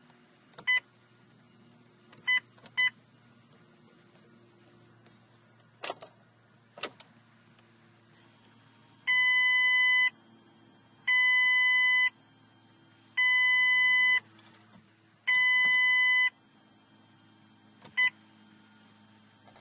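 Mercury Mariner Hybrid's warning chime beeping: three short beeps, two sharp clicks, then four long beeps of about a second each and a final short beep.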